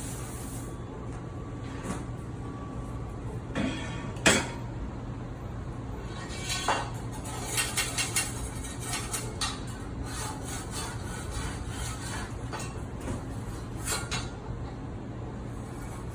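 Kitchen items being washed in a metal-lined sink: dishes, pans and utensils clattering and banging against the metal, with one sharp clang about four seconds in and a run of clatters a few seconds later, over a steady low hum.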